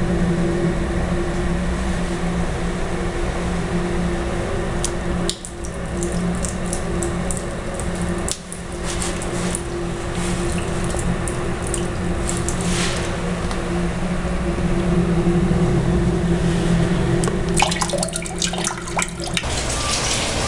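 A stream of water squirted from a plastic bottle, splashing onto a tiled floor and shoes, running steadily over a low hum. It is meant to pass for someone urinating under the stall partition.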